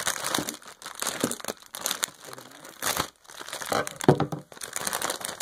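Plastic candy bag crinkling and rustling in irregular handfuls as it is handled and opened, with a sharp crackle right at the start and another about four seconds in.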